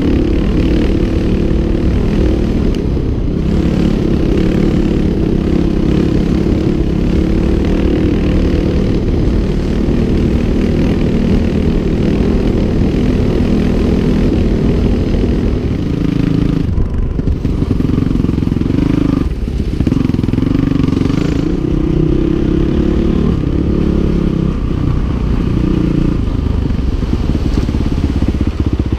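2008 Honda CRF450R's single-cylinder four-stroke engine running as the dirt bike is ridden along a rough trail, its note rising and falling as the throttle opens and closes, heard from the rider's helmet camera with wind and track noise on the microphone.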